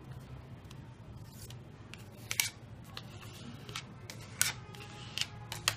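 Sheet of origami paper being folded and creased by hand: soft rustling as it slides, with a few sharp crackles, the loudest about halfway through and near the end.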